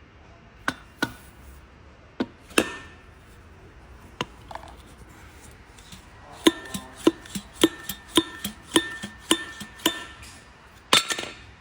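Metal tools striking metal during chassis and shock-absorber work: a few scattered clanks, then a quick, regular run of ringing metallic strikes, about two a second, like a hammer on steel, and a louder clatter near the end.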